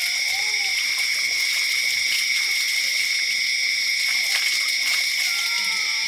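A steady high-pitched drone of two or three unchanging tones, with a few short animal calls that glide up and down near the start and again near the end.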